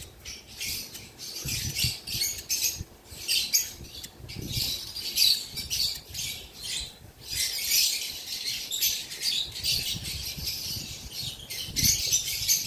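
Lovebirds calling in rapid, high-pitched, scratchy chirps and squawks, with hardly a pause, and a few soft low bumps.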